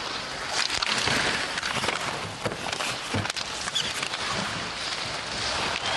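Ice hockey game sound: skate blades scraping on the ice and scattered sharp clacks of sticks and puck, over a steady crowd noise.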